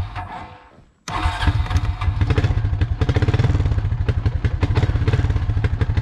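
Four-wheeler (ATV) engine starting: a brief first sound that fades out, then about a second in the engine catches and runs steadily with an even, rapid pulsing beat.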